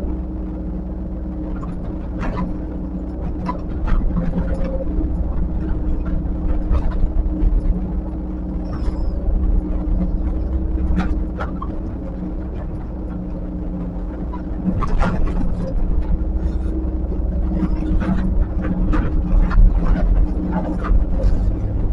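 Diesel engine of heavy earthmoving machinery, an excavator or bulldozer, running steadily under work, with irregular metal clanks and knocks from the machine as it works.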